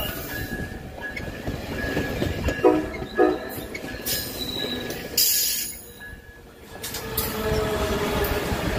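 COASTER bi-level commuter train rolling past, with steady wheel noise and a thin, steady wheel squeal. About three seconds in the horn gives two short toots, half a second apart. Near the end the locomotive goes by with a low droning tone.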